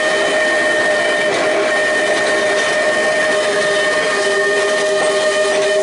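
Manx Electric Railway tram car rolling slowly past at close range, its wheels squealing against the rails on curved track: a loud, steady squeal of several held tones over the rumble of the car.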